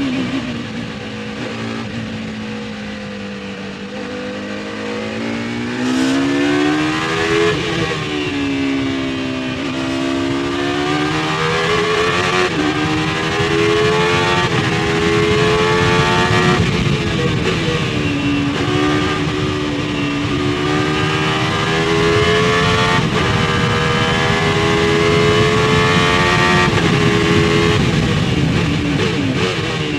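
Courage C60's naturally aspirated 4-litre V10 race engine heard onboard. The revs sink low in the first few seconds as the car slows, then it accelerates hard through several upshifts, the pitch climbing and dropping sharply at each gear change, and holds high revs in the last part.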